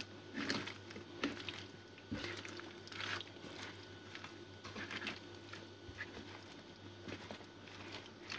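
Raw chicken pieces and cut potatoes being tossed and mixed by hand with spices in a pan: soft, irregular squelching and rustling, with a faint low hum underneath.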